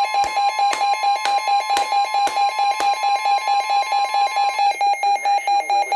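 Weather radio's warning alarm beeping in a fast, even pulse, with NOAA Weather Radio's steady 1050 Hz warning alert tone under it until about three-quarters of the way through. This signals an incoming severe thunderstorm warning. Sharp clicks come about twice a second during the first three seconds.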